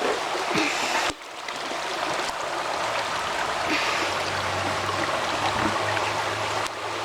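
Small mountain creek rushing steadily, an even wash of flowing water that briefly drops out about a second in.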